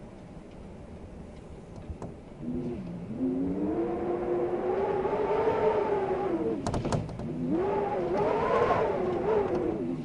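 Wind howling in gusts, a pitched tone that rises and falls over a rushing hiss. It swells about three seconds in, dips briefly around seven seconds with a few sharp clicks, then swells again.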